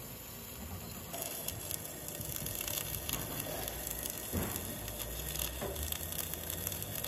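Electric arc welding on a steel excavator part: the arc crackles and spits steadily, getting louder and busier about a second in.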